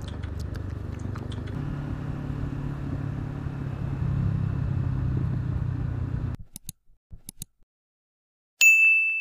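Honda CBR500R's parallel-twin engine running with wind noise while riding, the engine note lifting about a second and a half in. About six seconds in the sound cuts out to a few faint clicks. Near the end a loud, sharp ding rings out and fades.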